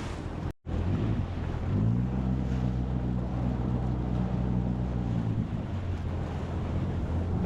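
Sea-Doo personal watercraft engine picking up speed about two seconds in, then running steadily, with wind on the microphone and water rushing. The sound cuts out briefly near the start.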